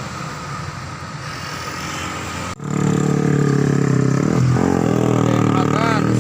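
Bus traffic on an uphill road: engine and road noise, then about two and a half seconds in an abrupt break and a loud, steady bus engine running under load on the climb.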